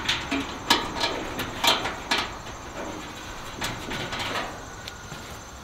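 Sheet-metal parts knocking and scraping inside a steel smoker cabinet as a piece is shifted to line up its screw holes. There is a quick run of sharp clanks over the first two seconds or so, then softer scrapes and knocks.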